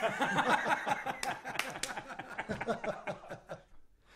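Laughter: a run of short chuckles that fades away toward the end.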